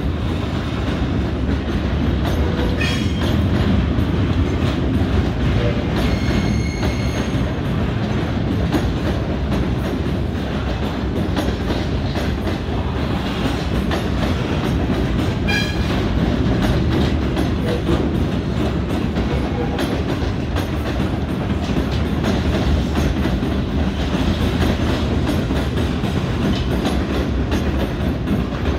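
Freight train's container flat wagons rolling past with a steady, loud rumble and clatter of wheels on the rails, with a few brief high squeals.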